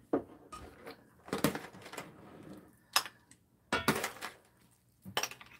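Metal ladle knocking and scraping against a stainless steel soup pot and ceramic bowls as clam sujebi is dished out: a few separate clinks with quiet gaps between them.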